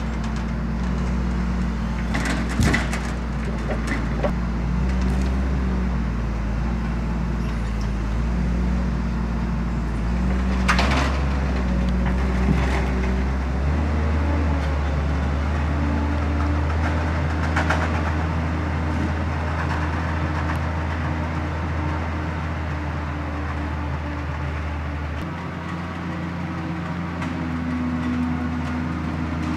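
The 6.7-litre six-cylinder diesel of a NOE 170-6R forestry skidder running steadily while its crane works a hardwood log in the grapple, with several sharp knocks of wood and steel. The engine note steps up about halfway through and shifts again near the end.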